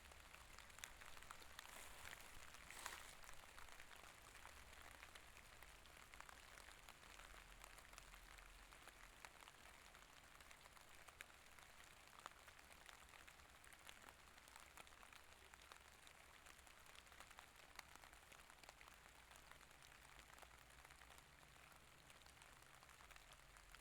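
Faint steady rain, a soft patter of many small raindrops.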